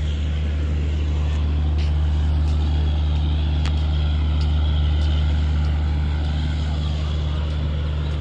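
Diesel engine of a train standing at the platform, idling with a steady low hum that does not change.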